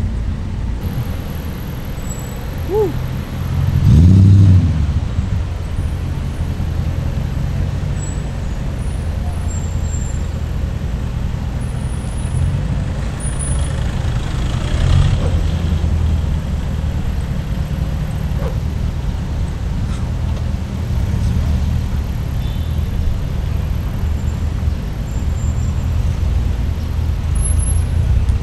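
Car engines running as cars drive slowly past one after another. One engine revs loudly about four seconds in, its pitch rising then falling.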